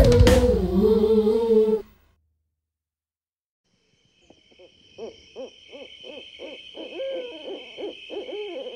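A sung theme song ends on a held note with a low boom and cuts off, followed by about two seconds of silence. Then a night ambience sets in: a steady high insect trill and a rapid series of hoots, about three a second, some of them wavering in pitch near the end.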